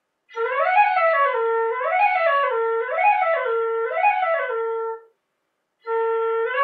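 Shinobue (Japanese bamboo transverse flute) playing a practice exercise: a quick run of notes up and back down to the same low note, four times in a row about a second apart. After a short break about five seconds in, the low note is held and the run starts again.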